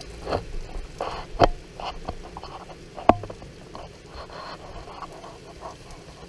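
Rain falling, with raindrops tapping irregularly on a surface close to the microphone over a faint steady hiss; the two loudest taps come about one and a half and three seconds in.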